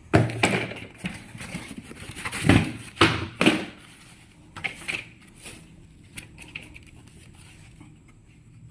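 Handling noises: a few sharp knocks and rustles in the first three and a half seconds, then only faint scattered clicks.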